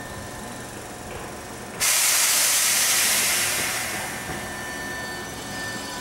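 A sudden loud hiss of compressed air let out of a Hankyu train's pneumatic system, starting about two seconds in, holding for a second or two and then fading, over the low running sound of the trains.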